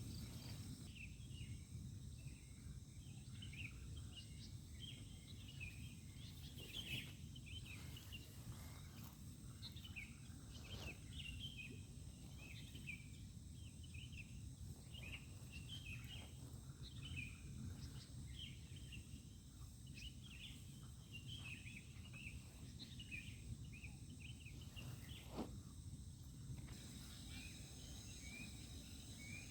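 Night-time chorus of small animals: steady high insect trilling with many short chirps that keep coming, over a low rumble. A few faint clicks come and go.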